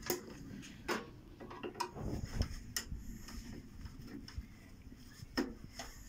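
Screwdriver and gloved hands working on the metal casing and parts of a microwave oven being taken apart: scattered clicks, taps and small metallic clinks.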